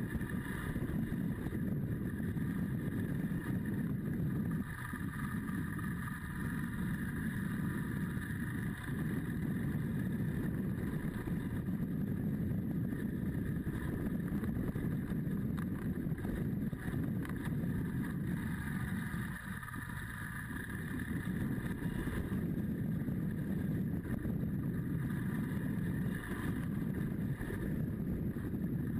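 BMW GS adventure motorcycle running steadily on the road, engine and wind noise heard from a camera mounted on the bike. The sound dips briefly twice.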